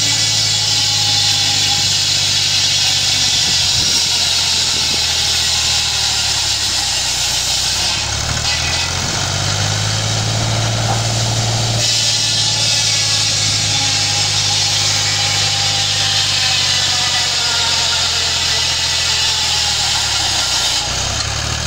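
Tractor-driven circular saw ripping long timbers, the blade's high-pitched cutting noise over the tractor engine's steady running. The cutting noise stops about eight seconds in while the next plank is fed, then comes back for a second long cut.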